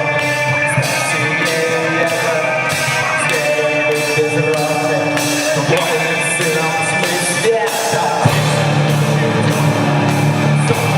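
Rock music with singing and a steady beat; a heavier low bass part comes in about eight seconds in.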